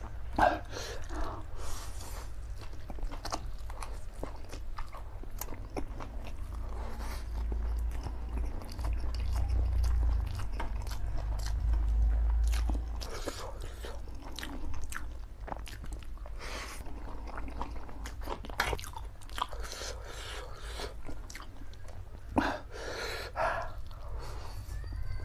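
Close-miked eating of spicy black bean noodles: wet chewing and mouth clicks, with a few louder noisy bursts as mouthfuls are taken in, and a low rumble that swells for a few seconds in the middle.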